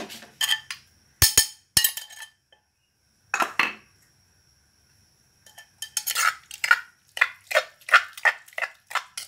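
Metal spoon stirring and scraping pounded green chili paste in a mortar, mixing in fish sauce and lime juice, clinking against the mortar's sides. A few sharp knocks come a little over a second in, then a run of quick scraping strokes, about three a second, fills the second half.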